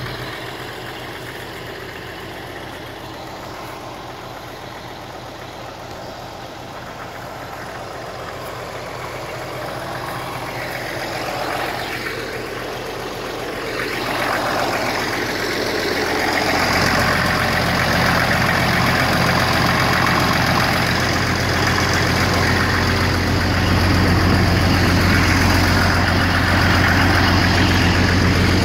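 Farm tractor engine idling steadily, growing much louder and deeper about halfway through as it comes close.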